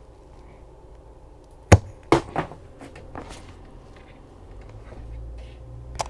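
A sharp click a little under two seconds in, then a few lighter knocks and clatter as tools and fuel-line parts are handled on a workbench.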